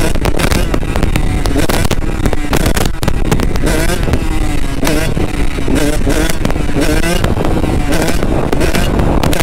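Kawasaki KX85 two-stroke motocross engine revving up and down over and over as the bike is ridden, with heavy wind buffeting on the microphone.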